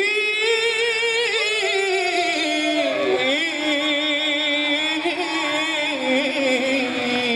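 Male nasyid vocalist singing a long wordless melismatic run in Arabic style, holding and bending notes with a wavering vibrato and settling onto a lower held note near the end.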